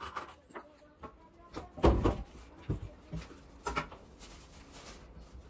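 Scattered wooden knocks and clunks as boards are handled and fitted. The loudest knock comes about two seconds in.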